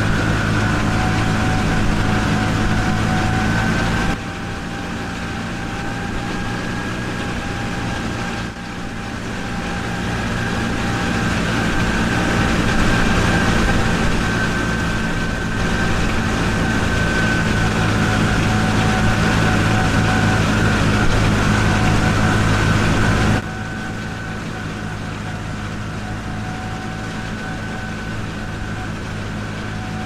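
Steady mechanical hum with a steady high-pitched whine over it, stepping abruptly louder and quieter several times.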